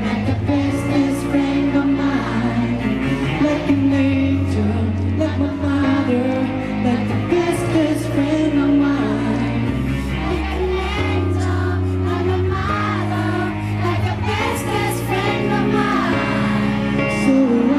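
Pop ballad playing over a PA system with singing, the song carrying on without a break.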